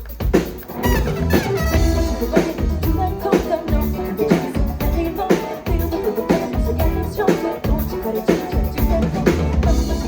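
Live Latin pop band playing an instrumental passage: a busy drum kit with snare and bass drum hits under steady bass and pitched instrument lines.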